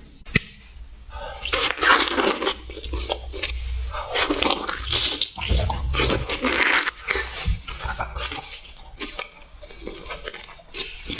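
Close-miked crunching and chewing of food: irregular crackly bites and chews.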